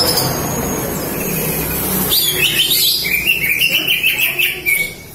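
Green leafbird (cucak ijo) singing a rapid run of chirping notes that starts about two seconds in, over a low background noise.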